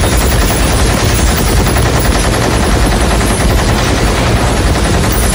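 Belt-fed rotary multi-barrel machine gun firing one long continuous burst as a film sound effect: a rapid, unbroken stream of shots.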